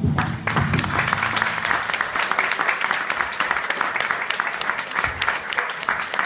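Audience applauding, many hands clapping in a dense, steady patter that starts just as the song's last note ends.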